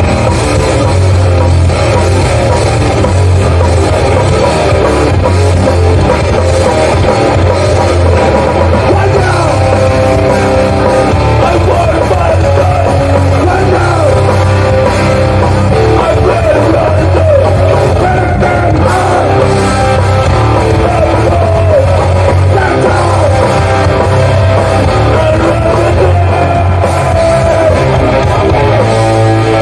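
Hardcore band playing live at full volume: electric guitars and a drum kit, with singing over them.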